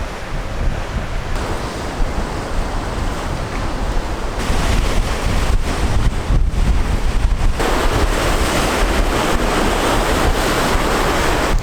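Strong wind buffeting the microphone over the rush of Atlantic Ocean surf. The gusts grow stronger about halfway through.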